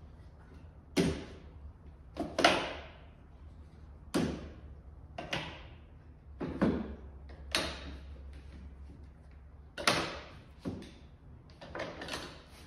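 Clamps being released from a glued-up walnut grate and set down on a wooden workbench: a series of about ten sharp knocks and clatters, one to two seconds apart.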